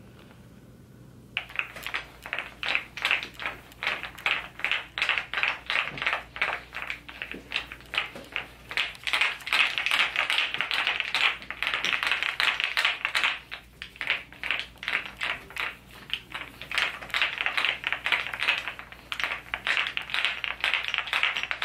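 A wooden wood-therapy (maderotherapy) roller rolled quickly back and forth over the body, its wooden segments clacking in a dense run of clicks in rapid strokes. It starts about a second in and pauses briefly a couple of times.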